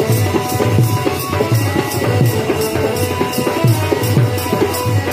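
Folk music with drums beating a steady rhythm. A high percussion ticks about four times a second, with a few held instrument notes over it.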